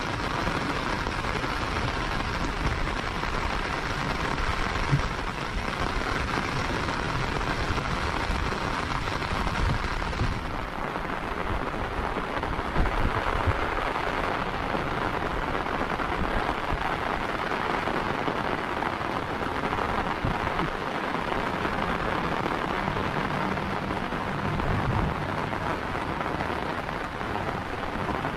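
Steady heavy rain falling on a paved footpath and roadside vegetation.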